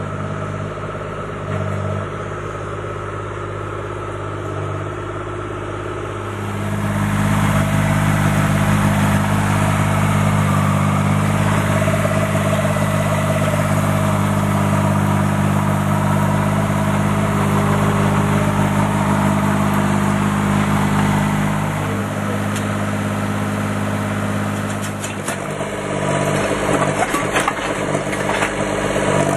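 A mini excavator's engine running steadily. It gets louder about six seconds in and drops back after about twenty-two seconds. Near the end its hydraulic breaker hammer starts striking the concrete patio slab in rapid blows.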